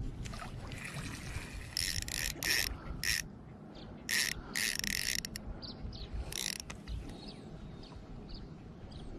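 Spinning reel ratcheting in short, irregular bursts, several between about two and seven seconds in, while a small channel catfish is fought on light line.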